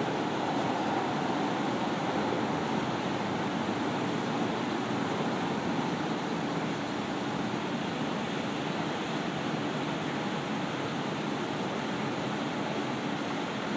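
Steady outdoor rushing noise, even throughout, with no distinct events standing out.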